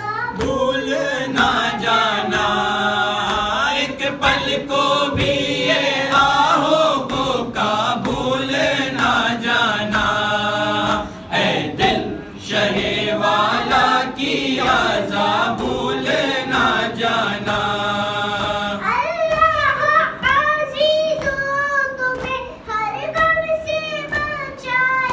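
A boy singing an Urdu devotional song into a microphone, with men's voices joining in together for the first part; from about two-thirds of the way through a single voice carries the melody more plainly.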